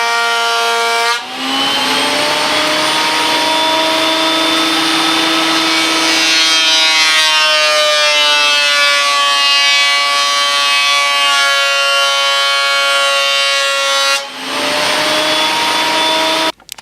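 Electric woodworking machine running with a steady motor whine. About a second in, the pitch drops and wavers as a board feeds through under load for roughly thirteen seconds. The pitch then rises back to free-running speed before the sound cuts off.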